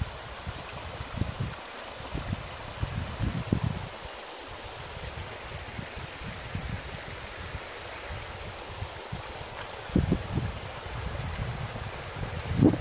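Shallow stream running steadily over rocks, a constant rushing and gurgling of water. Gusts of wind buffet the microphone as low rumbles, strongest about ten seconds in and again near the end.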